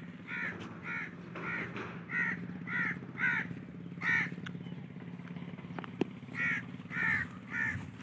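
A crow cawing over and over, harsh calls about two a second, with a pause of a couple of seconds before a few more caws near the end.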